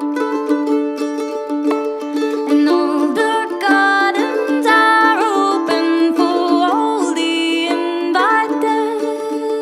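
Song music in an instrumental passage: quick plucked mandolin notes over a steady held low tone, joined about three seconds in by a sustained melody line that slides between notes.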